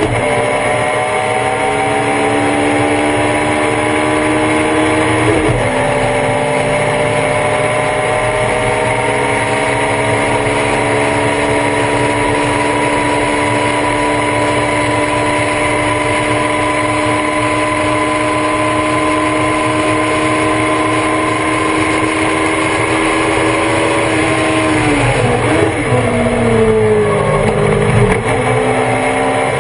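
Race car engine heard on board at full throttle. The pitch drops once about five seconds in, as on an upshift, then climbs slowly for a long stretch. Around 25 seconds in it falls sharply and wavers, as on braking with downshifts, then rises again near the end.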